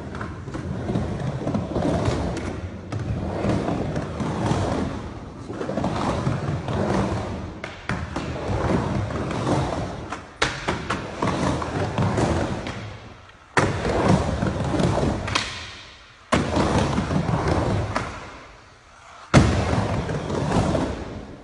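Skateboard riding a wooden vert ramp: wheels rolling up and down the walls in swells about every two seconds. Later come several sharp knocks of the board landing back on the ramp, each followed by a fading roll.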